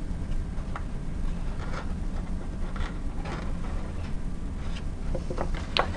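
Soft rustles and light taps of paper being handled, over a steady low hum, with a sharper click near the end.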